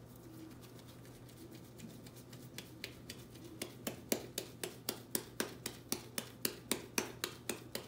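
Hands slapping and patting soft yeasted pizza dough while shaping it into a ball, a rhythmic run of soft slaps that starts a couple of seconds in and quickens to about three or four a second.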